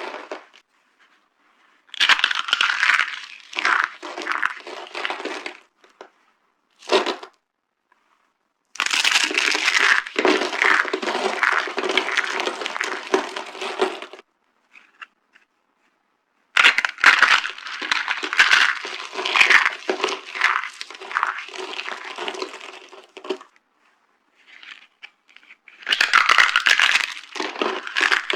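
Dry soap being crushed, a dense crunching and crackling. It comes in several long stretches of a few seconds each with short silent pauses between them.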